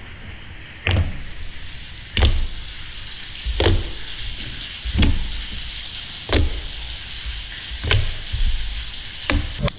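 Fingers jabbing down into a lump of soft slime on a wooden table, giving a dull thump about every second and a half, some eight times, over a steady hiss.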